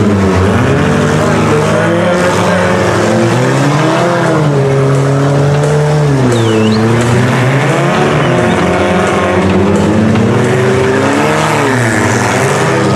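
Several small demolition-derby cars' engines revving up and down together, loud and continuous, as the cars drive and shove about the mud.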